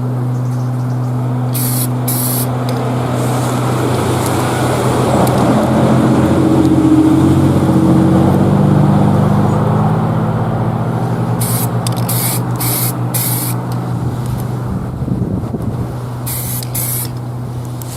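Aerosol spray paint can hissing in several short bursts, over a steady low hum. A louder, lower drone that shifts in pitch swells and fades through the middle.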